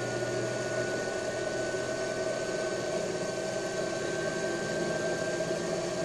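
Washing-machine universal motor running very fast on a 12 V battery with its field winding supply removed: a steady whir with a faint high whine that rises slowly as the motor keeps gaining speed.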